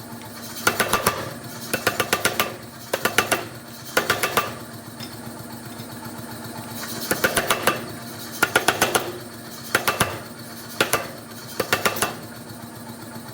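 Steel being forged under a hammer: sharp metallic blows in short quick bursts of several strikes each, with brief pauses between bursts, over a steady hum.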